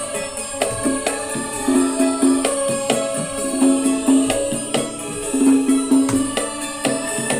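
Music with a tambourine-like jingling percussion and a sustained melody, played back through a home-built speaker system driven by PAM8403 amplifier boards and a new homemade crossover, under a sound check. Little deep bass comes through.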